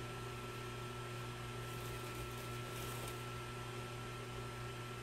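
Steady low electrical hum with a faint high whine over a hiss of room noise, unchanging throughout; no distinct event stands out.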